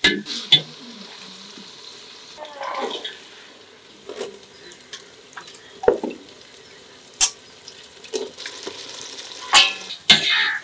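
A metal spoon stirring and scraping in a steel cooking pot, with sharp clinks against the pot every second or two, over a light sizzle of frying.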